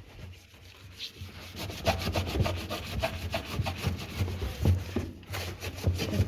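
Scrubbing brush rubbing back and forth over a washing machine part in quick repeated strokes, starting about a second in and pausing briefly near the end.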